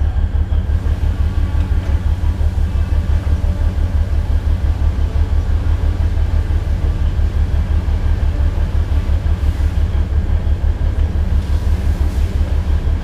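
Alishan Forest Railway train hauled by a DL-41 diesel locomotive running along the narrow-gauge line, a steady, fast-pulsing low engine rumble with rail noise.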